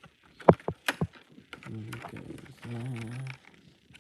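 Packaging being handled during an unboxing: a few sharp clicks and taps of cardboard and plastic, then a low hummed voice twice.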